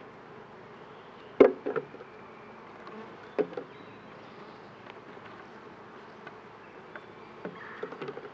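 Honeybees buzzing steadily around an open beehive, with a loud sharp knock a little over a second in, a second knock about two seconds later, and a few lighter clicks near the end.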